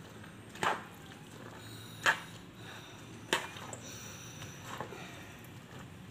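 A metal spoon knocking against a plastic mixing bowl while macaroni chicken salad is stirred: three sharp clacks about a second and a half apart, then a fainter one.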